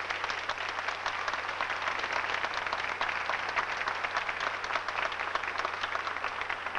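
Audience applauding steadily, the dense clatter of many hands clapping.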